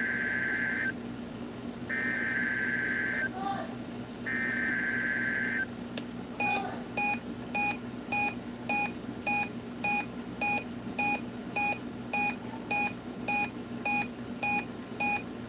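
NOAA Weather Radio SAME header: three raspy digital data bursts of about a second and a half each, sent for the weekly test. They are followed by a steady series of short electronic beeps, about one every 0.6 seconds, over a low hum.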